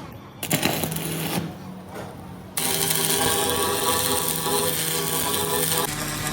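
A power tool runs steadily for about three seconds, starting suddenly, with a hard hiss over a steady motor whine. It is preceded by a brief spell of knocking and scraping.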